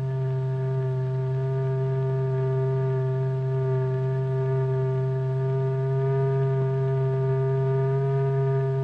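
Steady, unchanging low electronic tone with several higher overtones: the note that sets the membrane vibrating.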